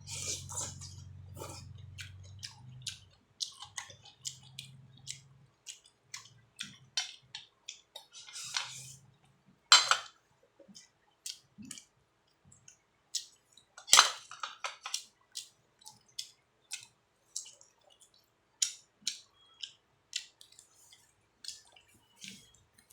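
Eating at the table: irregular small clicks and taps of utensils against bowls and dishes, with two louder clinks about ten and fourteen seconds in.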